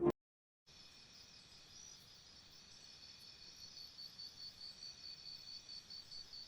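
Faint insect chirping, a high tone pulsing about four times a second and slowly growing louder, after music cuts off abruptly.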